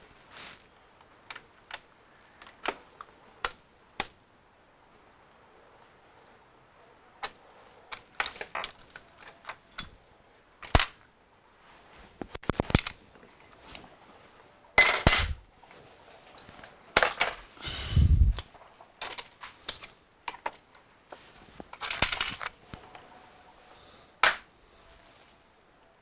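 Scattered sharp clicks, knocks and clatter of equipment being handled on a repair workbench, with a heavier, deeper thump about 18 seconds in.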